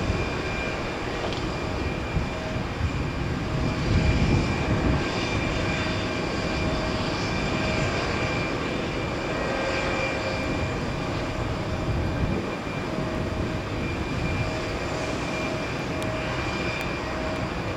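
Tecnam P2010 TDI light aircraft flying, its Continental CD-155 turbo-diesel engine and propeller giving a steady drone, with a louder low rumble about four seconds in.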